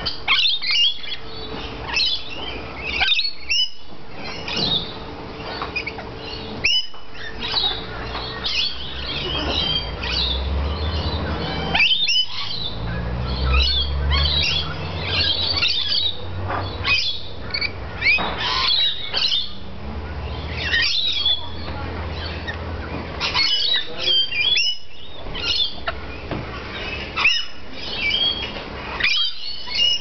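A group of rainbow lorikeets calling, with many short, high-pitched calls overlapping.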